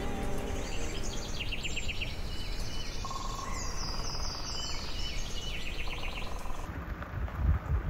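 Several songbirds singing in woodland, overlapping songs of fast repeated trilled notes and short slurred phrases, over a steady low rumble.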